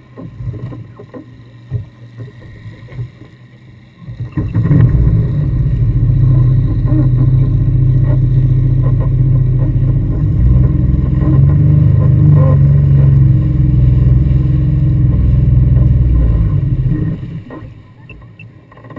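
Jet ski engines running close by: a loud, steady, low engine drone starts suddenly about four seconds in, holds, and dies away near the end.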